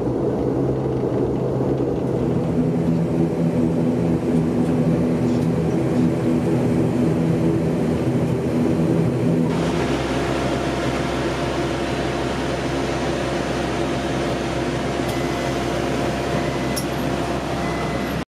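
Cabin drone of an ATR 72-500 turboprop taxiing after landing: a steady engine and propeller hum made of several low tones over a rumble. About halfway through it changes abruptly to a brighter, steady whirring machine noise with a thin high whine, heard out on the apron.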